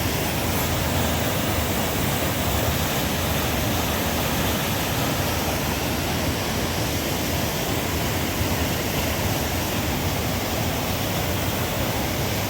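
Steady, even rush of a rain-swollen river in flood, loud water pouring over rocks or falls.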